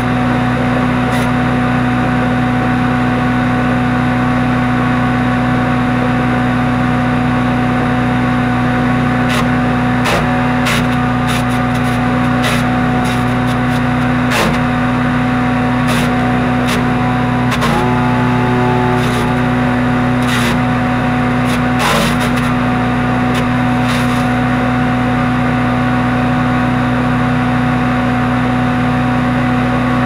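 Predator 62323 wood chipper's single-cylinder gasoline engine running steadily at full throttle, with scattered sharp cracks as branches are chipped. The engine's pitch dips briefly several times in the middle stretch as it takes the load of a branch.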